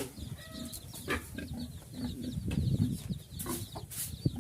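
Farm animals calling: many short low grunts with a few brief higher calls.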